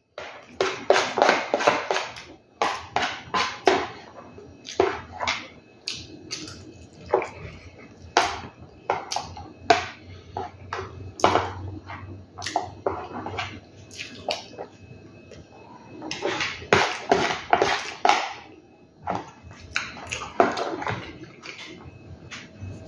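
Metal spoon scraping and clinking against a small black basin as food is scooped up, in short irregular strokes that come in clusters.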